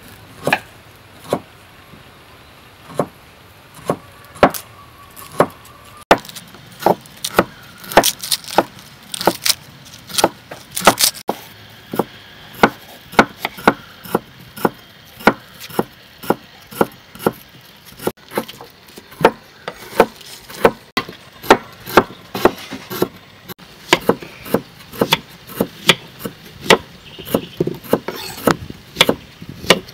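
Kitchen knife chopping onion on a thick wooden chopping board: sharp knocks of the blade hitting the wood, irregular, one to three a second, coming more often after the first few seconds.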